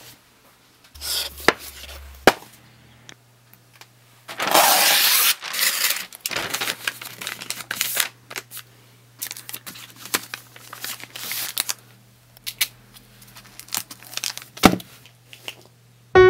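A book being gift-wrapped in paper by hand: rustling and crinkling paper with scattered taps and clicks, and a loud tearing sound lasting about two seconds, about four seconds in. A faint steady hum lies underneath.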